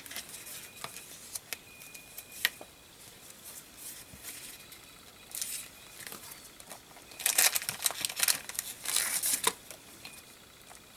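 Paper and craft supplies being handled, rustling and crinkling, with scattered light taps and clicks; two louder stretches of crinkling come in the second half.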